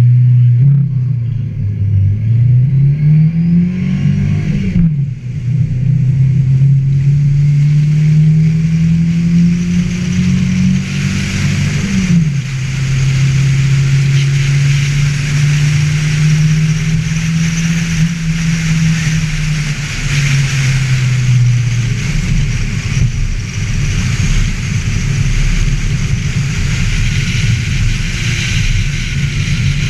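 Ford Festiva's four-cylinder engine pulling hard under racing acceleration. Its note climbs and drops sharply at two upshifts, about four and twelve seconds in, then holds steady and eases off a little past twenty seconds. A steady hiss runs over it.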